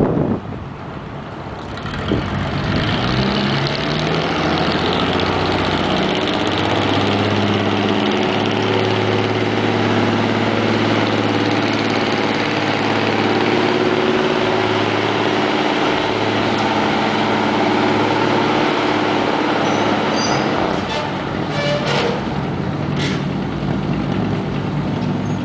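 Engine of a 1949 American LaFrance cab-forward aerial ladder fire truck, rising in pitch as the truck pulls away about two seconds in, then running steadily as it drives past. A few sharp clicks come near the end.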